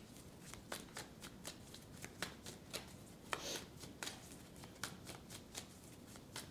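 A deck of tarot cards being shuffled by hand: a faint, irregular string of soft card clicks and slaps, a few a second, with a slightly longer rustle about three and a half seconds in.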